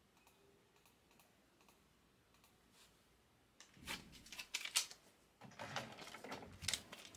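Near-quiet at first, then from about halfway in, irregular bursts of rapid clicking and clatter of typing on a computer keyboard.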